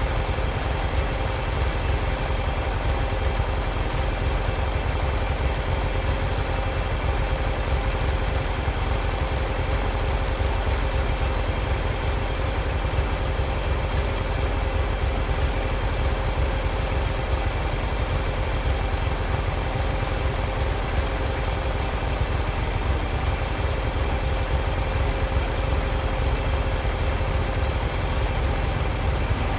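Tractor engine idling steadily and evenly, with a constant low rumble and a steady hum over it.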